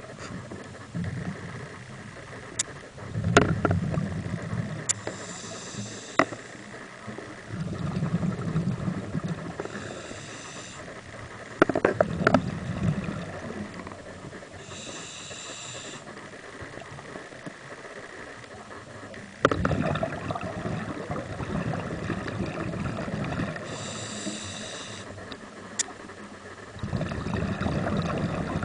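Scuba diver breathing through a regulator underwater: slow breaths several seconds apart, each a hissing inhale and a low bubbling exhale, with a few sharp clicks.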